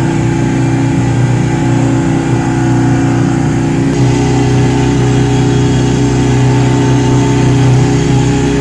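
A motor vehicle's engine running steadily, with a slight change in its pitch about four seconds in.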